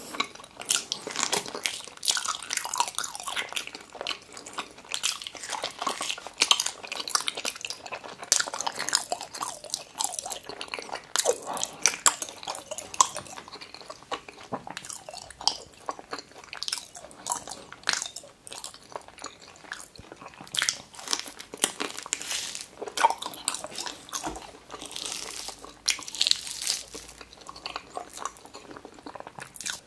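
A person chewing raw tuna sashimi with open-mouthed smacking, a dense irregular run of short, soft mouth clicks and squelches.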